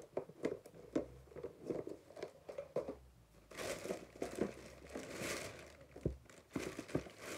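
A plastic bag crinkling and rustling as it is handled and rummaged through, louder from about halfway in, with small clicks and taps before that.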